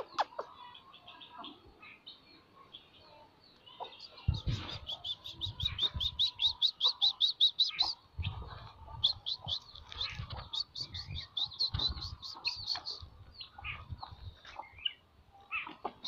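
A bird calling in rapid runs of short, high notes, about eight a second, starting about four seconds in and recurring in bursts, with scattered low thuds.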